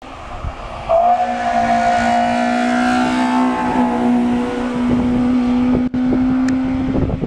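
Fiat 127 Sport hillclimb race car's engine at high revs as the car passes and climbs away, rising sharply about a second in and then holding a nearly steady pitch.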